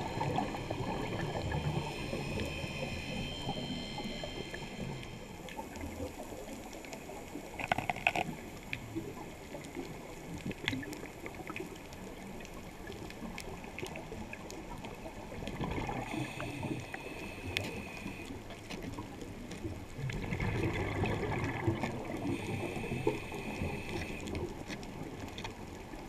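Muffled underwater bubbling of a scuba diver's exhaled breath from the regulator, heard through a camera's waterproof housing. It rises and falls in irregular bursts, with one sharp knock about eight seconds in.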